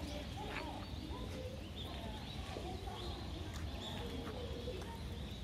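Birds chirping and calling in the trees, many short calls scattered through, over a steady low outdoor rumble.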